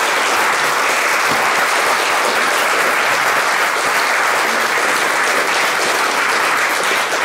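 A roomful of people applauding, steady dense clapping.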